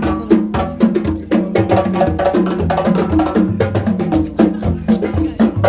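Percussion-heavy music: many quick, sharp drum hits over a pitched bass line.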